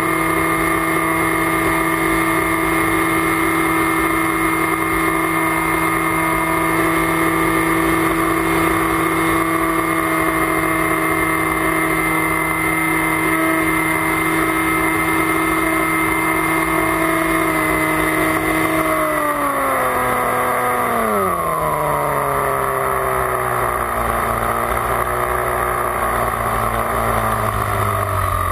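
Electric motor and propeller of an FPV flying wing, heard from its onboard camera, whining at a steady pitch. About two-thirds of the way in the pitch falls over a few seconds as the throttle comes back, then holds lower, with wind noise on the microphone underneath.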